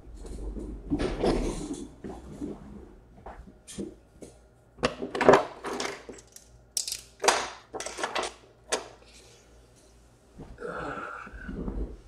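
A string of sharp clicks and knocks, clustered in the middle, with rustling handling noise near the start and again near the end.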